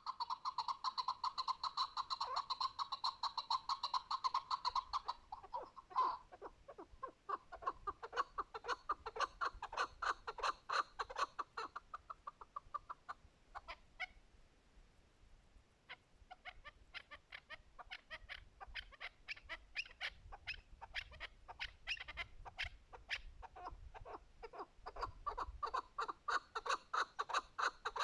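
Chukar partridge calling: long runs of rapid clucking notes, several a second, which stop for a moment about halfway through and then start up again.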